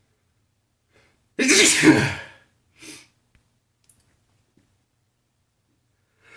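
A man's loud sneeze about a second and a half in, followed a moment later by a brief breath noise. Near the end a breath draws in again.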